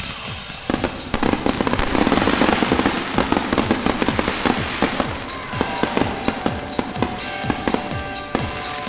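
Barrage of consumer 1.4G fireworks in a finale: a dense run of overlapping bangs and crackles starting about a second in, thinning to scattered sharp cracks over the second half. Music plays underneath.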